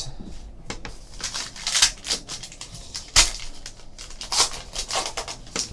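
A trading card pack's wrapper being torn open by hand, with cards being handled: a string of short crinkling rips and rustles, the sharpest about three seconds in.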